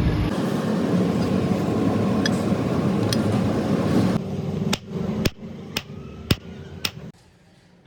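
A steady loud rushing noise for about four seconds, then five sharp blows of a blacksmith's hammer on steel, about half a second apart, before the sound cuts off abruptly near the end.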